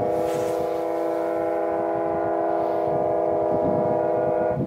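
The ship's horn of the BC Ferries vessel Northern Expedition sounds one long, steady blast, then cuts off near the end.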